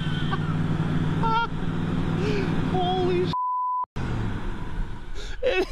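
1976 Chevy K10 pickup's engine running steadily at a fast idle, its carburetor holding it up near 3,000 rpm. About three and a half seconds in, a half-second censor bleep covers the sound, followed by a brief dropout.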